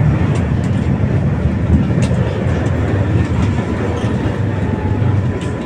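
Tram running along its track, heard from inside the passenger cabin: a steady low rumble of wheels on rails, with a few sharp clicks.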